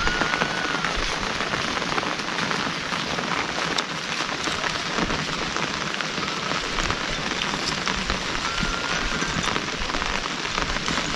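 Steady rain falling, with a constant hiss dotted with many small drop impacts.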